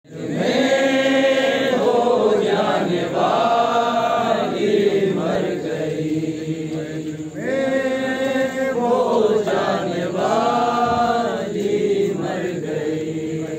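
Male voices chanting a noha, a Shia lament, without instruments through a microphone in long drawn-out sung lines, with the group singing along.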